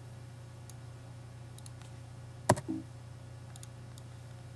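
A few light computer mouse clicks while navigating folders, with one louder sharp knock about two and a half seconds in, over a steady low hum.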